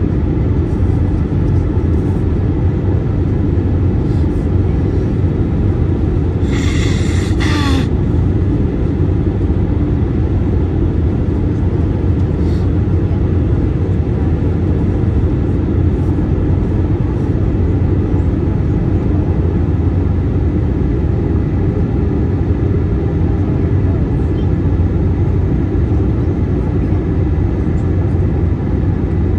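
Steady cabin drone of an Airbus A321-231 in flight: engine and airflow noise from its IAE V2500 engines, heavy in the low end. A brief hiss cuts in about seven seconds in.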